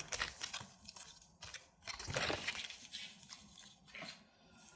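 Trading card blister pack being handled and opened: faint, scattered crinkles and clicks of plastic and foil packaging.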